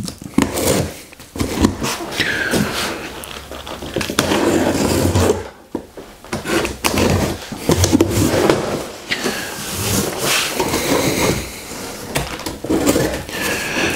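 Cardboard shipping box being opened by hand: packing tape cut and pulled off and the cardboard flaps torn back, scraping and rustling in several bouts with brief pauses.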